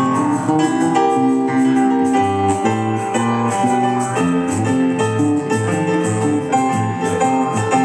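Yamaha digital keyboard played live in a piano voice, steady chords and sustained notes changing every half second or so.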